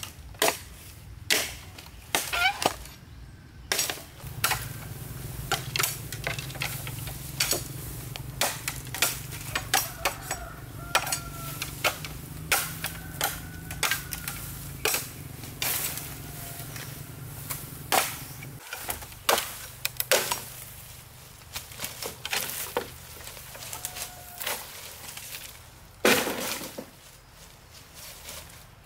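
Machete blade chopping into green bamboo: repeated sharp strikes at an uneven pace, about one a second, some followed by the crack of stems and branches breaking.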